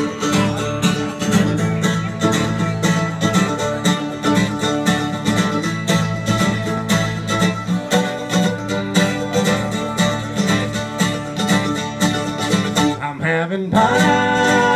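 Live acoustic string duo playing a country-bluegrass tune: a strummed acoustic guitar and a second plucked string instrument picking quick notes, with a brief break about thirteen seconds in.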